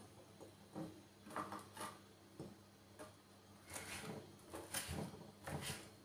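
Knife cutting cooked chicken into small cubes on a cutting board: faint, irregular taps and knocks of the blade on the board, coming more often in the second half.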